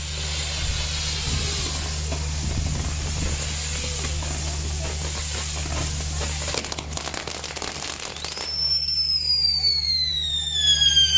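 Fireworks on a castillo pyrotechnic tower burning: a steady rushing hiss of spark fountains, with a quick run of crackling pops about six and a half seconds in. About eight and a half seconds in, a loud whistling firework starts and falls steadily in pitch.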